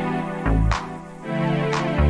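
Electronic background music with a steady beat: a low kick and a sharp snare-like hit about once a second under held synth notes.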